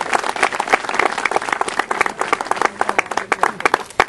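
Crowd applauding, many hands clapping together; the applause stops near the end.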